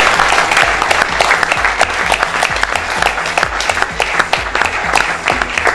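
Audience applauding, a dense patter of many hands clapping, over background music with a steady bass beat.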